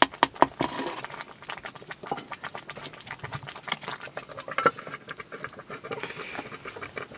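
Metal ladle scraping and clinking against a metal cooking pot as its contents are stirred: a quick run of scrapes at first, thinning out after about a second, with one sharper metal clink a little past halfway.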